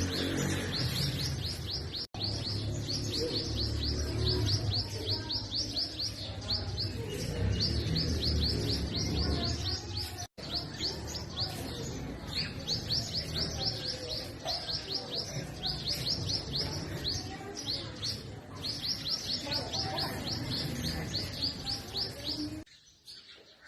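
Purple sunbird singing: long runs of short, high, downslurred notes repeated several a second, broken by brief pauses, with a low rumble underneath. The song cuts off suddenly near the end.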